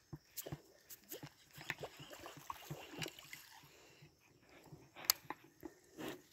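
Yara Shotgun 90 popper lure being jerked across the water surface, making a string of short, irregular pops and splashes, the loudest about five seconds in.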